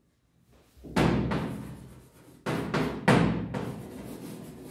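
Chalk knocking and scraping on a chalkboard during writing: a few sharp knocks, each ringing on briefly, then a run of lighter, quicker strokes.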